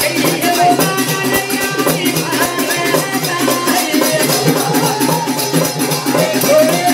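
Live Banjara devotional music: a hand drum and a jingling tambourine keep a fast, steady beat under a melodic voice line.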